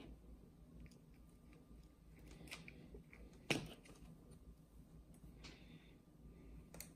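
Faint handling sounds of hand tools and small metal parts on a workbench: a few light clicks, with one sharper click about three and a half seconds in, over a low room hum.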